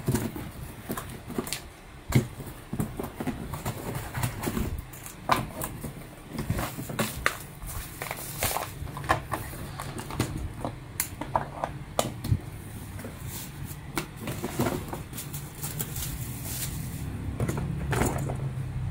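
Handling noise of unpacking an electric jug kettle: cardboard box flaps, plastic wrapping rustling, and the kettle base and glass kettle set down on a table in a run of irregular clicks and knocks, over a steady low hum.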